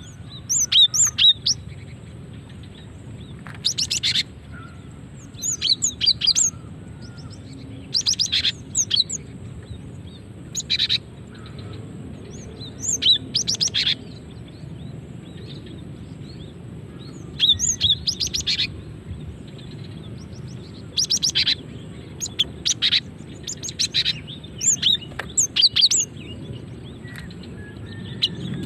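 Female cinereous tit (gelatik batu) calling: short clusters of high, quick chirps repeated every second or two.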